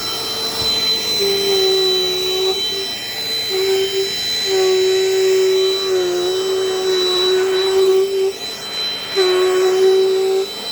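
Dirt Devil Dynamite Plus vacuum cleaner running, a steady high whine with a lower hum that drops away and comes back several times.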